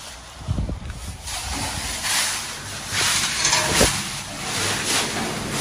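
Plastic trash bags rustling and crinkling as they are grabbed and shoved around, with a couple of dull thumps.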